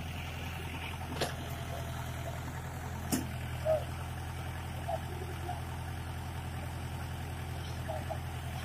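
Tractor engine of a Bull agri backhoe loader running steadily with a low hum. Two sharp knocks come about one and three seconds in.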